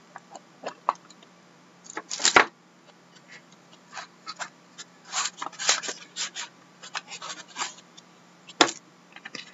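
Stiff cardboard trading-card box being handled and opened, lid and inner box sliding out: scattered light scrapes, taps and rustles, with a louder knock about two seconds in and another near the end.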